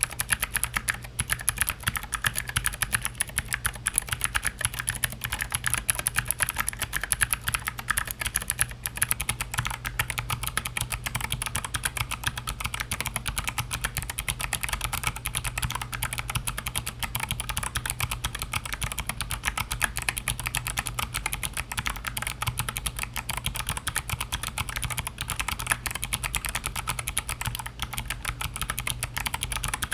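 Fast, continuous typing on a mechanical keyboard with clicky switches: Gateron Blue switches, then Kailh Box Jade switches from about nine seconds in, each keystroke a sharp click.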